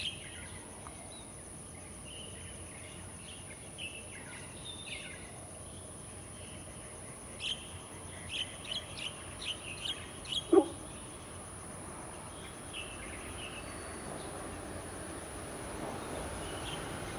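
Birds chirping and calling over a steady background hiss and a steady high tone, with a quick run of chirps in the middle and one short, loud call that falls in pitch about ten and a half seconds in. Near the end the low rumble of an approaching electric-hauled train slowly grows.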